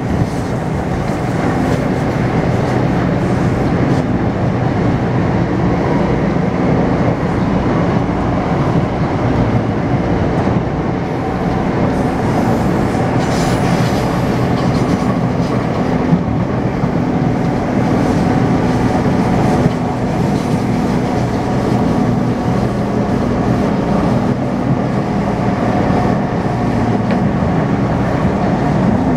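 Taipei Metro C301 train with retrofitted propulsion, heard from inside the car while running along the line: a steady rumble of wheels on track with a low steady hum from the motors.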